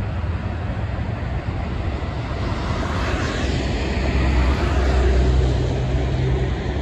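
Steady highway traffic noise of tyres and engines, swelling about halfway through as a heavy semi-truck passes close with a low diesel drone, then easing off.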